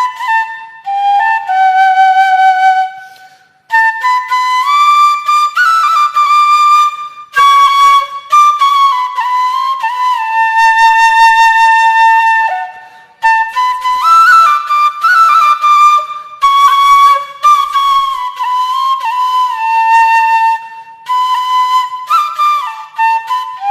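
Background music: a solo flute playing a slow, sliding melody in phrases, with brief pauses between them.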